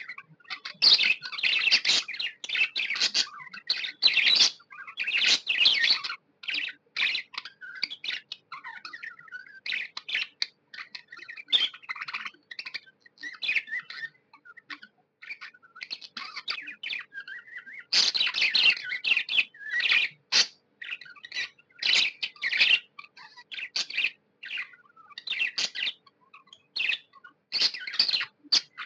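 Budgerigar chirping: rapid runs of short, high chirps, busiest for the first few seconds and again a little past the middle, with sparser single chirps in between.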